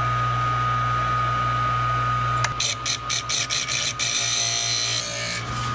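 Electric piston ring filer running with a steady hum and whine. About two and a half seconds in, the ring end is touched to the spinning abrasive wheel in a quick series of short grinding contacts, then held against it in one longer grind. The ring's end gap is being filed to size.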